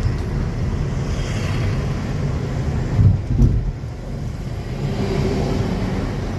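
Steady low rumble of road and engine noise inside a moving car's cabin, with two short low thumps about halfway through.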